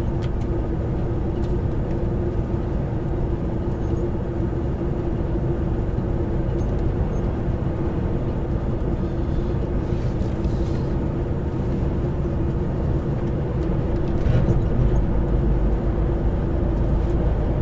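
Semi-truck driving, heard from inside the cab: a steady engine hum and road rumble, growing slightly louder near the end.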